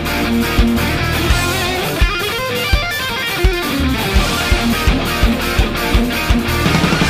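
Instrumental rock music: guitar over a steady drum beat. The drums drop back for a moment near the middle, then come back in.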